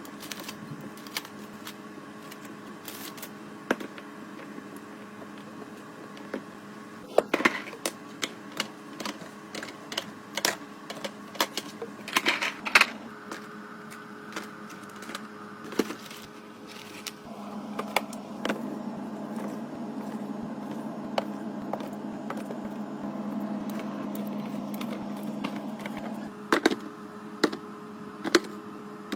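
Items being handled and set into a fridge during a restock: a string of sharp clicks, taps and knocks of containers and packaging, over a steady low hum. A steadier noise lasts several seconds in the second half.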